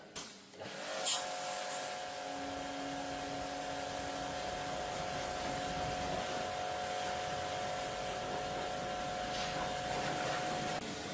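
A power tool running steadily: a hissing whir with a faint steady whine, switched on with a click about a second in.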